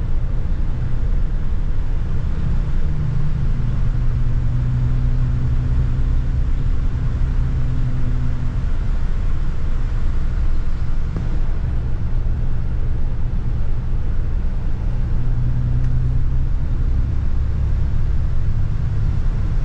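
Double-decker bus heard from the upper deck while driving: a steady road and drivetrain rumble, with a low engine hum that swells in twice and fades again.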